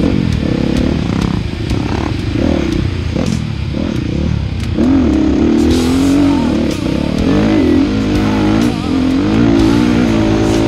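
Dirt bike engine revving up and down with the throttle, its pitch repeatedly rising and falling as the rider accelerates and backs off around the track. Heard close up from the bike itself.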